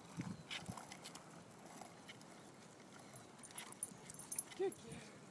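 Faint skateboard sounds on asphalt: scattered clicks and knocks as a Portuguese water dog puppy rides and paddles the board along. About four and a half seconds in, the dog gives a short whine.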